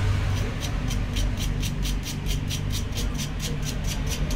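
Emery paper rubbed back and forth on the metal diaphragm of an electric car horn, quick even strokes about five a second, starting about half a second in, over a low steady hum. The diaphragm is being cleaned up during a horn repair.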